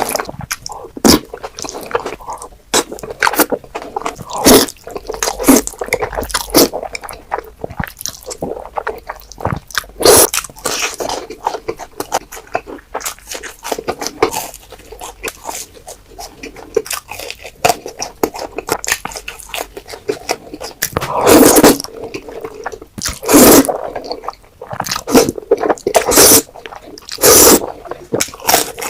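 Close-miked eating of Korean black bean noodles (jjajangmyeon): wet chewing and noodle slurps that come irregularly, with a few longer, louder slurps in the last third.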